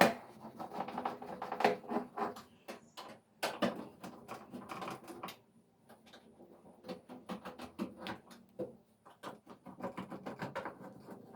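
Irregular run of quick clicks, taps and light rattles from small hard parts being handled, denser in the first half and sparser later.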